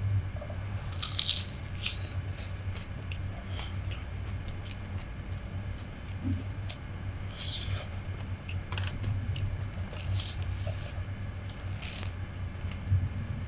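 Close-miked crunching and chewing of a deep-fried vegetable fritter (bakwan). Short crisp bursts come about a second in, again in the middle and near the end, over a steady low hum.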